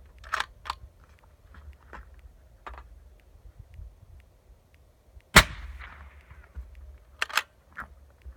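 A single suppressed 6.5 Creedmoor rifle shot through a Thunder Beast Ultra 7-inch suppressor, about five seconds in, metered at about 143.5 dB, with an echo trailing off for about a second. Smaller sharp clicks come before and after it.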